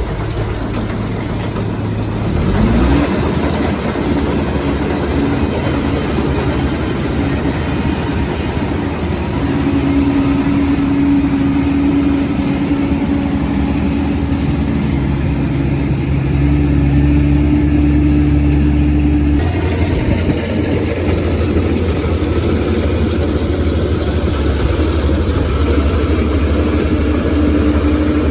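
Kubota rice combine harvester running, a steady engine and machinery hum with a whine over it. The pitch rises about three seconds in, and the sound changes abruptly about twenty seconds in.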